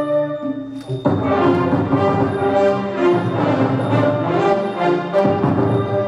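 Orchestra with prominent brass playing music for a Khon dance-drama. A held chord fades out, then the full orchestra comes in loudly about a second in and plays on with notes changing roughly once a second.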